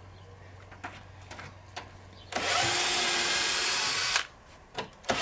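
Cordless drill-driver running for about two seconds, then stopping, as it backs a screw out of a shed's wooden wall board; a few faint clicks come before it, and it starts again right at the end.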